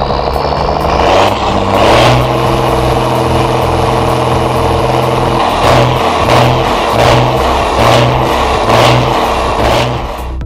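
MAN truck's diesel engine revving through a chrome triple-tip side exhaust. The pitch climbs over the first two seconds and holds high, then from about halfway the throttle is blipped in a quick series of pulses, roughly three every two seconds.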